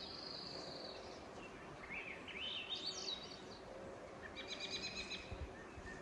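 Songbirds singing faintly: a held high whistle in the first second, rising runs of notes about two to three seconds in, and a quick trill of repeated notes about five seconds in.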